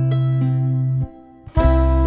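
Background music: plucked notes over a steady bass. It drops out for about half a second near the middle, then comes back.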